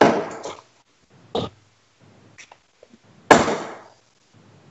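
Darts thudding into a bristle dartboard: three sharp hits, about a second and a half to two seconds apart, the last the loudest.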